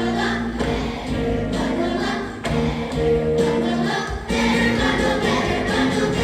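A choir singing, holding notes that change step by step.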